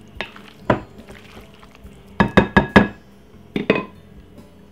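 A spoon clinking and knocking against a glass mixing bowl as a mayonnaise-dressed sweet potato salad is mixed. The sharp clinks come in clusters: two in the first second, a quick run of four about two seconds in, and two more later.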